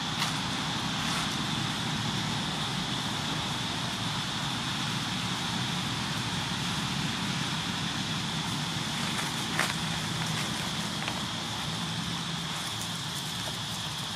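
Steady outdoor background noise: a low hum with a steady high-pitched hiss over it, and two brief clicks, one near the start and one about two-thirds of the way in.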